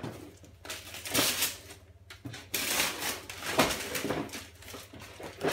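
Wrapping paper being torn and crumpled by hand, in several short rips and rustles.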